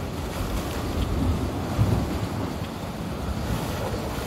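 Sea waves washing and splashing against the shore, with wind rumbling on the microphone.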